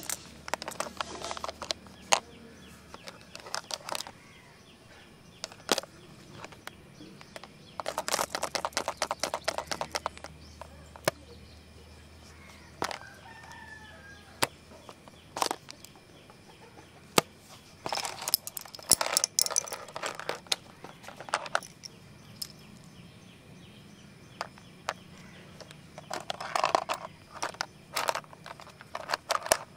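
Pens, pencils and erasers rattling inside a red plastic pencil box as it is shaken, in three spells of fast rattling, with single taps and clicks of the box and its lid in between.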